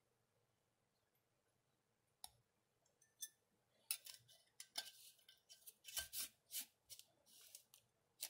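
Metal screw band being twisted down onto the threads of a glass mason jar: a single click about two seconds in, then a run of short metal-on-glass scrapes and clicks from about four seconds on.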